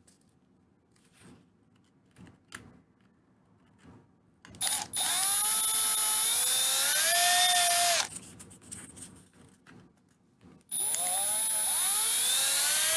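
Electric drill running in two bursts of about three seconds each, its pitch rising as it spins up, drilling through a plastic jumbo ping pong ball. Before the first burst come a few faint handling clicks.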